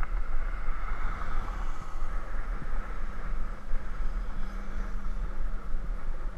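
Wind buffeting the microphone of a camera moving along a road, a low uneven rumble with a steady hiss over it.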